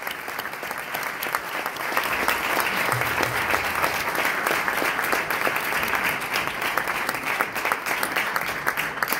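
Audience applauding, a dense, steady clapping from a roomful of people.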